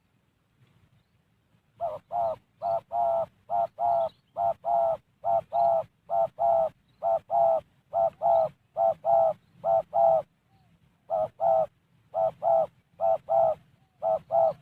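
Spotted dove (tekukur) calling: a rapid series of short, clipped coos, mostly in pairs, starting about two seconds in and going on with one brief pause.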